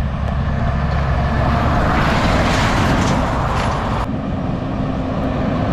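Road train's diesel engine running with tyre noise as it approaches, growing louder about two seconds in; the sound changes abruptly about four seconds in.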